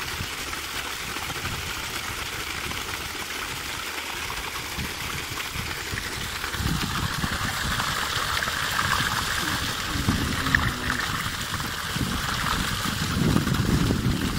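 Water gushing steadily from a pumped plastic pipe outlet onto stony ground. A louder low rumble joins from about halfway through.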